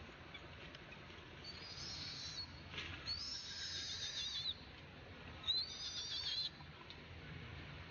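Newborn baby monkey calling three times in high, thin, wavering squeaks, each lasting about a second.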